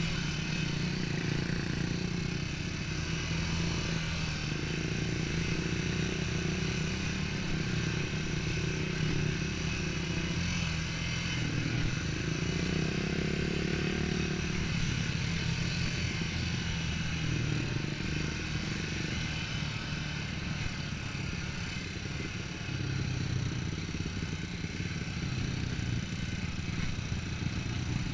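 ATV engine running as the quad rides along a dirt trail, its pitch rising and falling with the throttle, with a clear rise about twelve seconds in.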